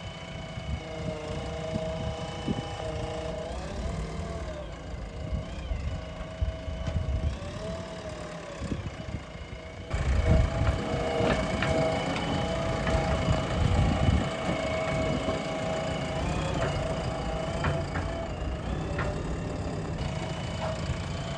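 JCB digger's diesel engine running, with a whining tone that dips and rises now and then as the machine works. About ten seconds in it gets louder, and a few clanks follow.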